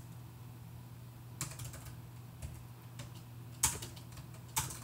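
Keys typed on a computer keyboard: a few scattered key clicks, the loudest two near the end.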